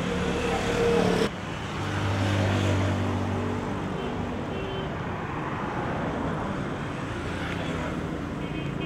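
Street traffic noise: vehicle engines running in steady road din, with the sound dropping abruptly a little over a second in.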